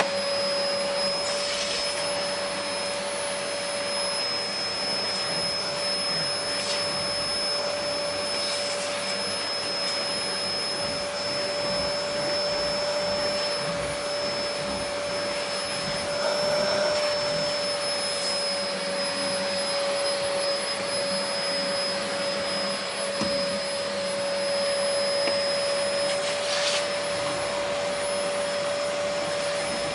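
Vacuum cleaner running steadily: a continuous rushing noise with a motor whine that holds its pitch, wavering only slightly.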